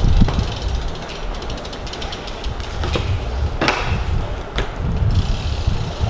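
BMX rear hub ratchet ticking rapidly as the bike coasts, over a low rumble of rolling. It starts about a second in and stops near the end, with a few sharper clicks among the ticks, the loudest a little past the middle.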